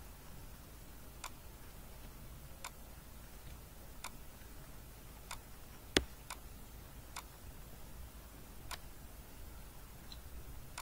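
Faint computer mouse clicks spaced a second or more apart, with one louder click about six seconds in.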